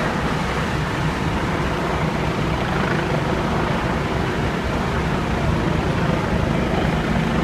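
Fire apparatus diesel engines running steadily, a low hum under a constant hiss.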